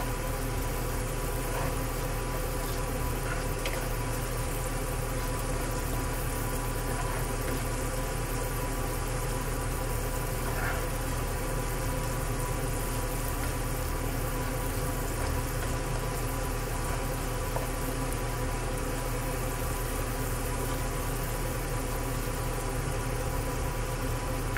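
Kitchen range hood fan running with a steady hum, over onions frying in a pan and a few faint spatula scrapes as they are stirred.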